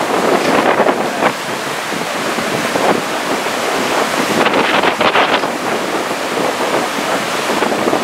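Strong gusty wind buffeting the microphone in surges, over the wash of choppy surf.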